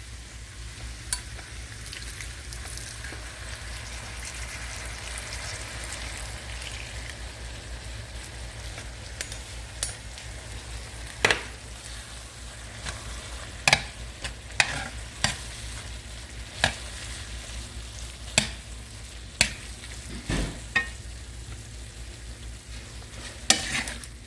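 Beef mixture sizzling in a pan, with a spoon stirring through it and knocking against the pan now and then in the second half.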